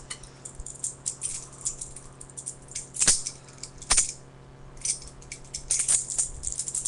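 Balisong (butterfly knife) being flipped: a quick, irregular run of metallic clicks and rattles as the handles swing around the blade. A few louder clacks come about three, four and seven seconds in as the handles slap together.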